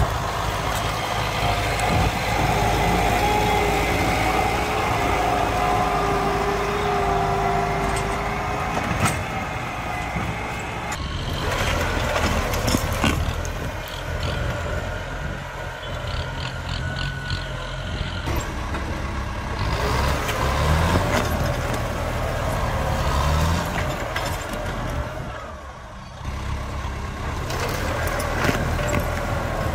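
Kubota tractor diesel engines running under heavy load as they work a tree stump, with the engine revving up and down. Scattered knocks and cracks come from the disc plough cutting through soil and roots.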